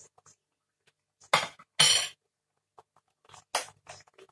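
A spatula clinking and scraping against a pan of curry in short, separate strokes, the two loudest about a second and a half in and a few lighter knocks near the end.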